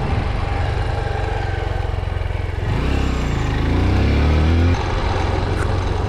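Motor vehicle engine running under way, speeding up with a rising pitch through the middle of the clip, then dropping off suddenly near the end.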